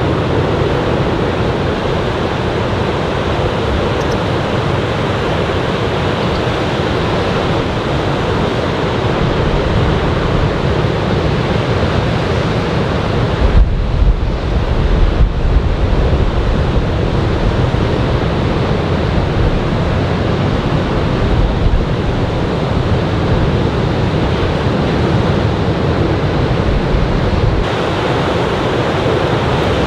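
Surf from a typhoon swell washing onto a sandy beach in a steady roar, with wind buffeting the microphone in gusts about halfway through and again a little later.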